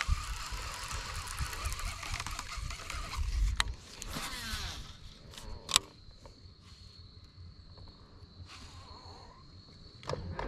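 Baitcasting reel during a cast: a rushing whir as the spool pays out line, winding down with a falling pitch about four seconds in, then a sharp click as the reel is engaged, followed by quieter handling. A faint steady high whine runs underneath.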